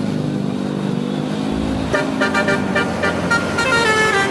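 A vehicle engine running, then about two seconds in an Indonesian bus telolet horn plays a quick melody of short notes stepping up and down, several tones sounding together.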